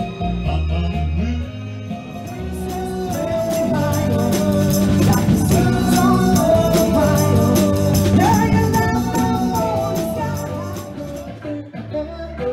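Live band music: a lead singer over bass, drums and a steady shaken-percussion beat. The music changes abruptly about two seconds in and again near the end, as one song is cut to another.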